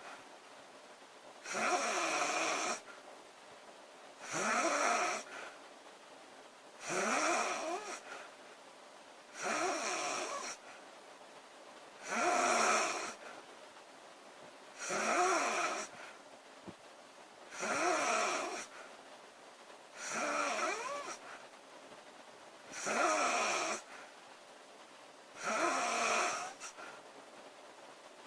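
A woman snoring in a steady rhythm: about ten snores, each roughly a second long, one every two and a half seconds or so.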